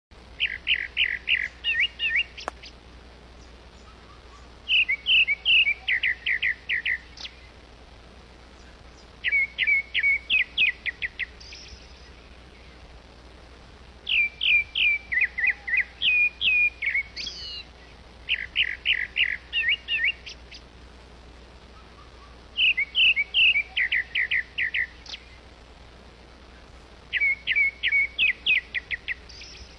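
A songbird repeating the same short phrase of about eight to ten quick, falling chirps, seven times, with a pause of two or three seconds between phrases.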